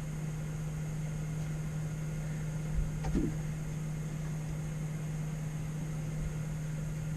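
Steady low mechanical hum of a running appliance or fan, with one brief soft knock about three seconds in.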